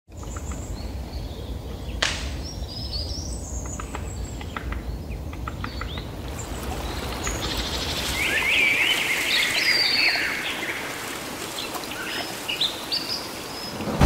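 Forest ambience: several birds chirping and calling, in short trills and twitters, over a steady low rush that fades out about halfway through. A single sharp click comes about two seconds in.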